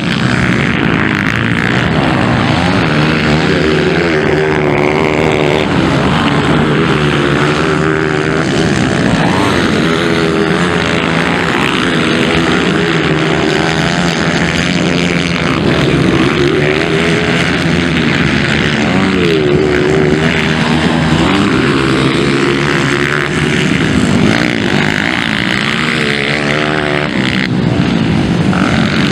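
230 cc motocross bikes' engines revving hard and easing off again and again as they race past, several bikes at once, the pitch rising and falling with each throttle change.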